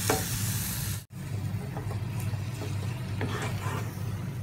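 Wooden spatula stirring chunks of cooked beef through thick masala in a non-stick pan, with small scrapes and clicks over the sizzle of the frying. A steady low hum runs underneath. The sound breaks off for an instant about a second in, and the sizzle is fainter after the break.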